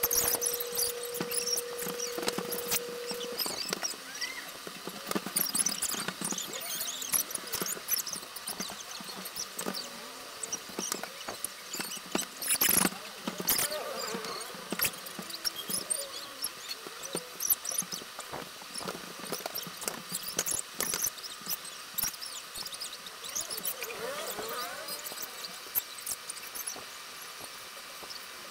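Graphite pencil scratching and sketching on paper, sped up, so the strokes come as a fast run of chirpy, squeaky scratches. A steady tone sounds under it for the first three seconds or so.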